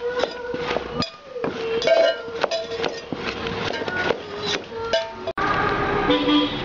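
Metal spoon clinking and scraping against an aluminium pot while thick cake batter is beaten by hand: repeated irregular clinks, each with a short metallic ring. About five seconds in it cuts off abruptly to a different background.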